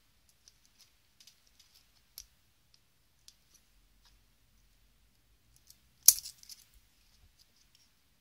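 Faint clicks and taps of small plastic and metal phone parts being handled. About six seconds in comes one sharp snap, followed by a few light rattles, as the BlackBerry 957's keyboard module is unclipped from its metal frame.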